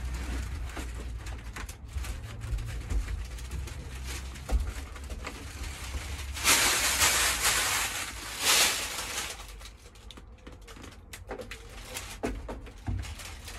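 Hands rubbing and pressing foil-faced sound-deadening sheet onto a van's steel side panel: scattered rustles and light taps, with a louder scraping, crinkling rustle for about three seconds midway.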